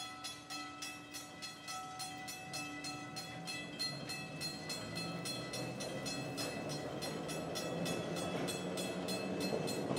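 An electric streetcar rolling through a road crossing, its wheels and running gear growing louder as it comes close. A bell rings steadily and rapidly over it, about four strokes a second.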